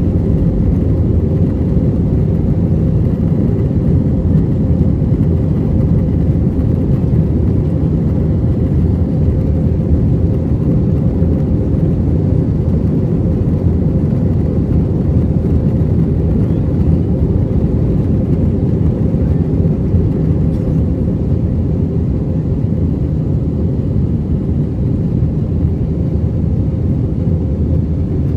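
Airbus A321 jet airliner heard from inside the cabin after takeoff: a steady, loud low rumble of engines and airflow that holds even throughout.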